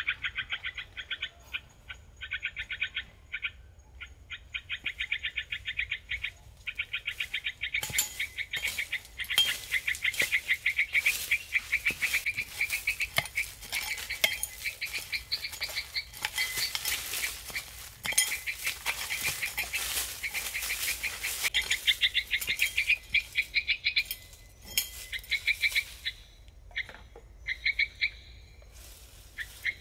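Animal calls: trains of rapid, high-pitched chirping pulses that stop and start, growing denser and buzzier through the middle stretch.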